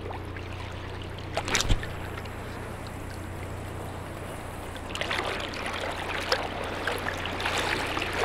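Water sloshing and splashing around an angler wading in a wading suit, getting busier and louder after about five seconds, with a couple of sharp knocks about a second and a half in, over a steady low hum.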